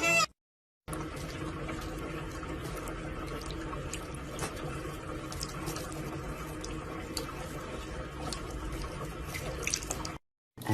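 Steady running water, like a tap or sink, with scattered small ticks and drips. It starts just under a second in and cuts off shortly before the end.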